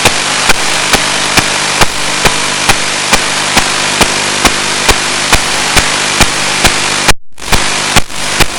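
Steady static hiss from an analog FPV video downlink, with a faint hum of steady tones under it and a sharp click about twice a second. The hiss cuts out completely for a moment about seven seconds in.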